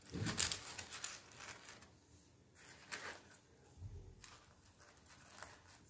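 Tissue paper rustling and crinkling faintly as hands set loose glittery hearts into a card box: a longer rustle at the start, then a few short ones.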